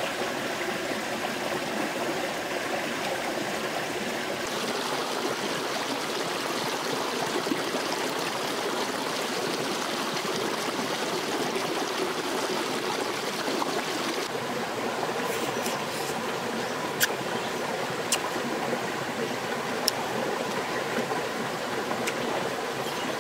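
Steady rush of a stream running over rocks, with a few short sharp clicks in the last third.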